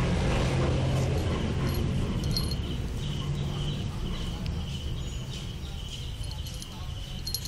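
Insects chirping in a steady, pulsing high trill, over a low rumble that is loudest in the first couple of seconds and then fades.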